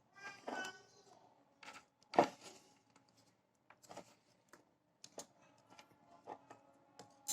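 Scattered small clicks and taps of tools on an e-rickshaw controller's circuit board as a capacitor is desoldered, the sharpest tap about two seconds in.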